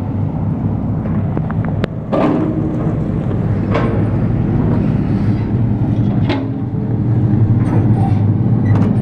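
Heavy diesel machinery running steadily with a low drone, with a few sharp metallic clanks over it.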